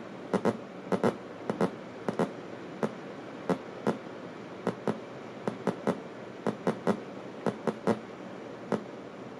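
LDR-controlled avalanche oscillator firing irregular sharp clicks, often in pairs, over a steady hiss. The light sensor sees almost nothing, so the oscillator fires only sparsely. The clicks stop about a second before the end, leaving only the hiss.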